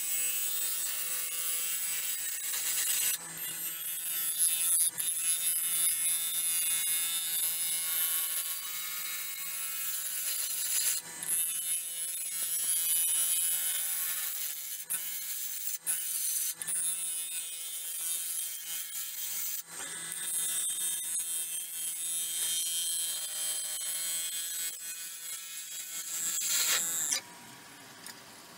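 Turning gouge cutting the inside of a spinning silver maple burl bowl on a Nova Galaxi DVR lathe: a steady shearing hiss of wood being cut, over the lathe's hum. Near the end the tool comes off the wood and only the lathe's hum is left.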